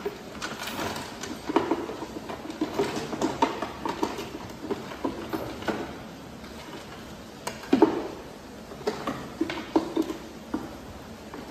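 Irregular knocks, clicks and clatter of light model aircraft parts being handled, set down and packed into a cardboard box by hand, with a sharper knock about eight seconds in.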